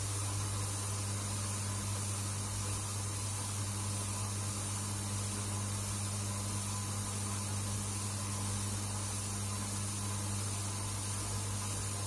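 Front-loading washing machine running mid-cycle with water in the drum: a steady low hum with an even hiss over it.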